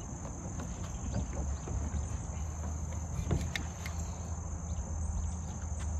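Insects trilling steadily in one continuous high-pitched note, over a low rumble, with a few faint soft knocks.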